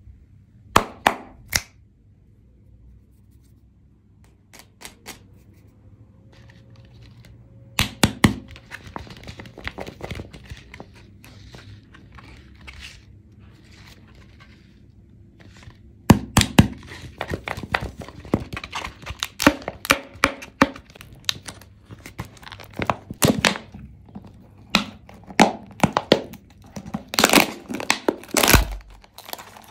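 Hands handling a large toy surprise egg: sharp taps and knocks on its shell, with crinkling and tearing of its printed wrapper as it is peeled open. The handling starts sparse, with a quiet stretch after the first few taps, and grows busier about halfway through, with the crinkling and tearing densest near the end.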